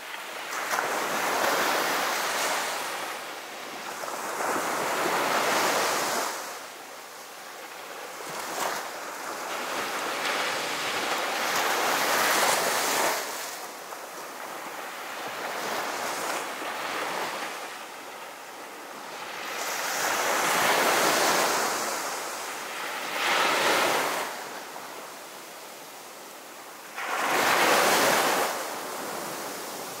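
Ocean waves: a hiss of surf that swells and fades every few seconds as each wave washes through.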